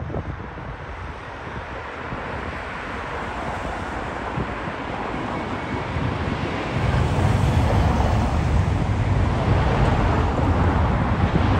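Jet noise from an Airbus A350's turbofan engines as it lands and rolls out on the runway, with wind on the microphone. It grows steadily louder, and about seven seconds in a deeper, louder rumble sets in and holds.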